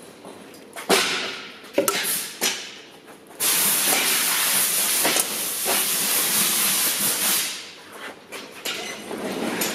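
A few sharp metal clicks and clanks, then a loud steady hiss of a pressurised jet lasting about four seconds, starting about three and a half seconds in and tailing off.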